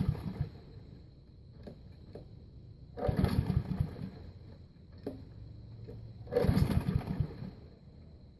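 Honda GCV160 lawnmower engine being pull-started by its recoil cord: a series of hard pulls about three seconds apart, each a second or so of rope whizz and rapid cranking chuffs. The engine does not catch on this cold start after sitting two years.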